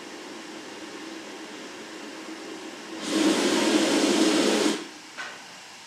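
Narrow-gauge steam locomotives standing in steam give a steady low hiss. About three seconds in, a loud blast of steam hisses for about a second and a half and cuts off, followed by a brief short puff.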